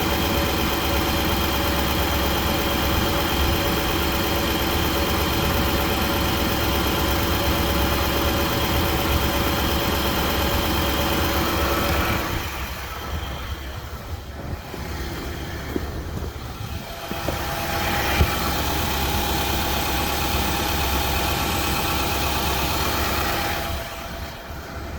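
2017 Nissan Titan Pro-4X's V8 engine idling steadily, a sound the owner suspects holds an engine knock. It turns quieter for a few seconds past the middle and again near the end.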